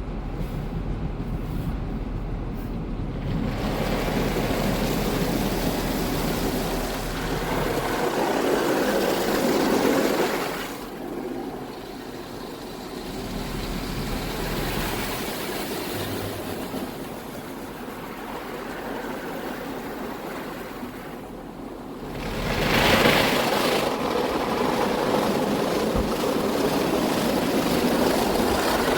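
Car wash spraying water over a car, with machinery running, a steady rushing noise that swells and drops in loudness a couple of times.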